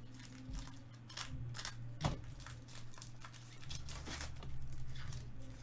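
Foil wrapper of a Topps Chrome baseball card pack being torn open and crinkled by gloved hands: a run of irregular crackles with one sharper snap about two seconds in.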